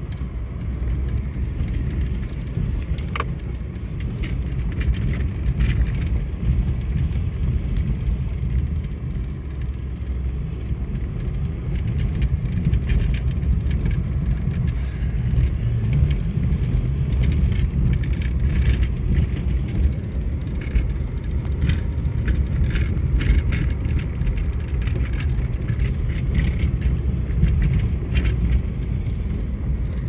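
Steady low rumble of wind and road noise from a moving motorbike, with scattered light rattles and clicks.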